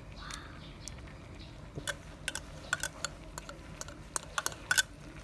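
A spoon clinking and scraping against a metal cooking pot as the rice, beans and mutton are stirred: a run of sharp, irregular clicks over the middle and later part.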